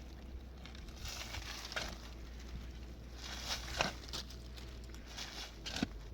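Irregular scraping and knocking with a few sharp clicks, over a steady low hum.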